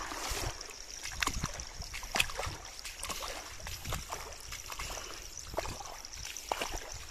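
Footsteps sloshing through shallow muddy floodwater, a splash roughly every second, over a steady rush of water.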